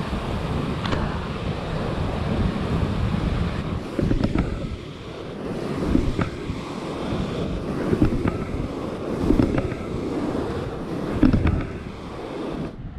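Surf breaking and washing over a rocky reef flat, with wind rumbling on the microphone. The rush of water swells several times.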